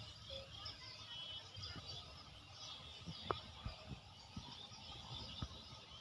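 Faint outdoor ambience with birds chirping in the background, a low rumble, and a few soft clicks, the sharpest about three seconds in.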